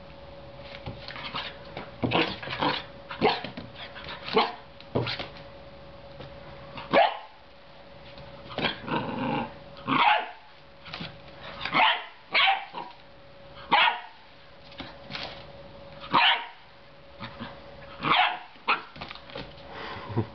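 Belgian Shepherd Groenendael puppy barking repeatedly in play, about twenty short, irregular barks with a longer growl near the middle.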